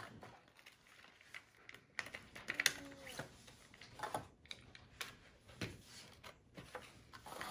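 Scattered light clicks and taps at an irregular pace: a small box and its plastic contents being handled.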